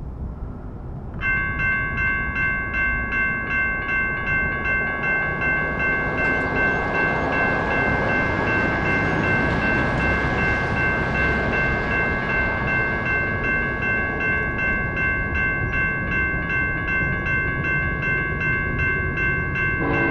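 Railroad crossing bell starts ringing about a second in and keeps up a rapid, steady ding of about three strikes a second, over wind and low rumble. Right at the end a lower, chord-like train horn begins to sound.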